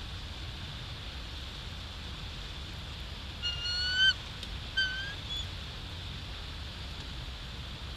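Bald eagle calling: two high, thin notes about a second apart, each rising slightly, the first longer and louder. A steady background hiss and low rumble run underneath.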